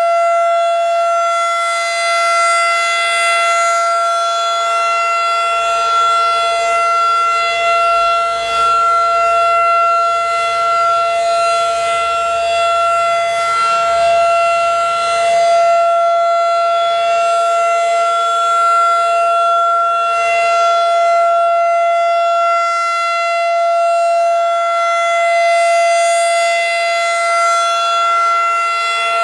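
Federal Signal 2001-DC tornado siren sounding a weekly test, held at a steady, unchanging pitch with its rich stack of overtones, swelling slightly and easing off in loudness as it turns.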